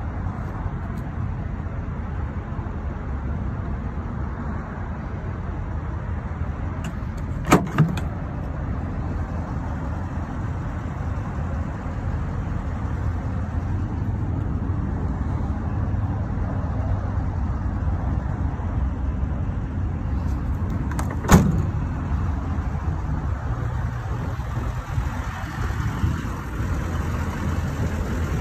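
Steady low rumble of a running vehicle engine. A sharp double knock comes about a quarter of the way in, and a single sharp knock about three quarters of the way in.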